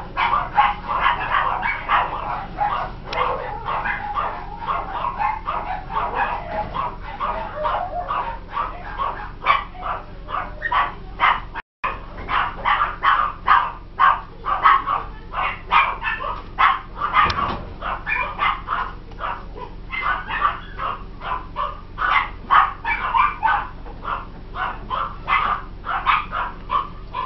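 Baby marmosets calling: a rapid, unbroken string of short high-pitched squeaks, about three a second. The sound cuts out briefly about twelve seconds in.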